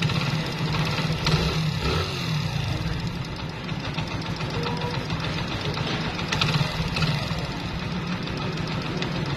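Honda Pridor motorcycle's single-cylinder four-stroke engine idling steadily after a timing chain replacement: no timing-chain rattle left, only a light tapping from the tappets of the old, high-mileage engine.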